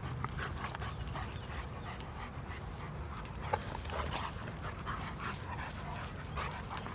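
Large dogs at rough play, making faint short sounds over a low steady rumble.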